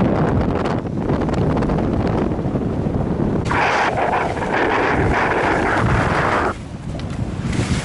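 Wind buffeting the microphone, a heavy steady rumble. From about three and a half seconds a brighter hiss joins it and cuts off suddenly about three seconds later.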